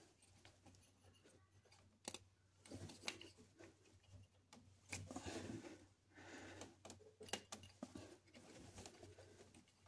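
Faint clicks and rubbing as a plastic 3-bar MAP sensor is pressed into its bore on the intake manifold, its O-ring binding and resisting the push.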